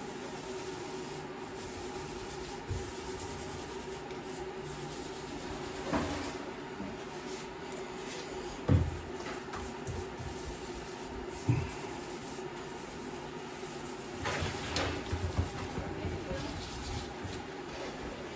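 Grout being worked into tile joints in a shower: intermittent scraping and rubbing of a grout float on tile, with a few sharp knocks, over a steady background hum.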